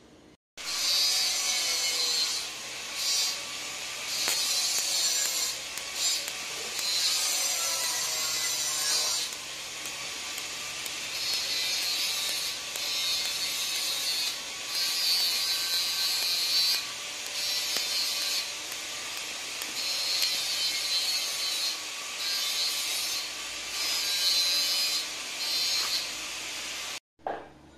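TIG welding arc on thin-wall 304 stainless steel pipe: a steady hiss that swells and drops in level every second or so. The arc strikes about half a second in and cuts off suddenly just before the end.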